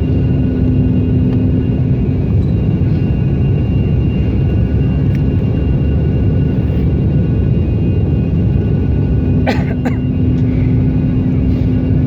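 Steady low rumble of a jet airliner in flight, with a steady hum and a faint high whine over it. A short double squeak sweeps upward about nine and a half seconds in.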